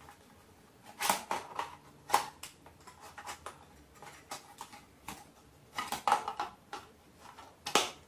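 Hard plastic clicks and knocks from a Roomba 600-series dust bin as its filter is pressed back into place and the bin is fitted and closed, in short irregular bursts.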